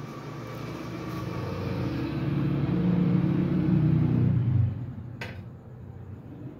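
Low rumble of a motor with a steady hum in it, building over the first two seconds and dropping away suddenly about four and a half seconds in; a single sharp click follows a moment later.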